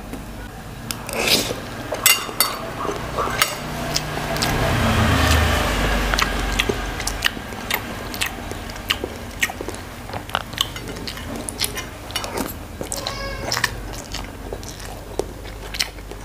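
Close-miked eating: chewing and biting mouthfuls of rice and soup, with a spoon and fork clinking and scraping against the plate and bowl in many sharp clicks.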